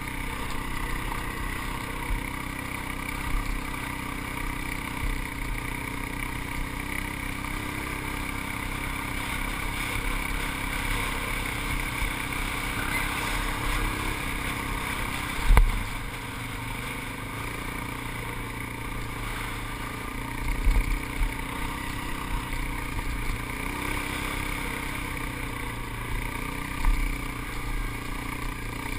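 ATV engine running steadily while riding over sand, heard from the rider's seat. A few short low thumps break in, the loudest about halfway through.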